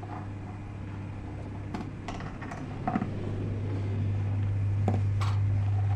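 Bolts and washers being unscrewed by hand from the underside of a chair seat: a few scattered light metal clicks and taps over a steady low hum.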